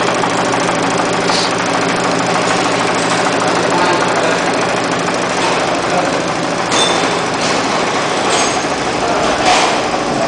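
High-speed cord knitting machine running at speed: a steady, dense mechanical clatter over a hum, with a few brief sharper clicks in the second half.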